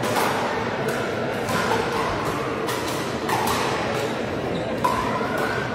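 Pickleball paddles striking a plastic pickleball: a series of sharp hollow pocks, roughly one a second, echoing in a large sports hall over a steady murmur of spectator chatter.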